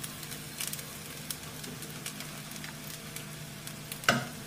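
Faint crackling of fried rice in a hot kadai, the flame just turned off, as a spoon stirs it, with scattered small clicks. About four seconds in, the spoon knocks sharply against the pan.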